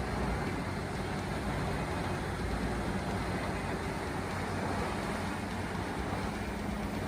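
Large wood chipper or grinder running steadily under a diesel engine, a continuous heavy mechanical drone with a low engine hum.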